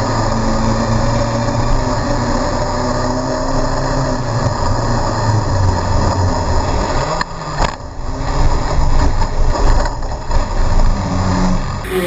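Legend race car's motorcycle-derived engine droning steadily, picked up by the car's onboard camera. About seven seconds in the sound dips suddenly with a couple of sharp knocks, then the engine noise turns uneven and choppy.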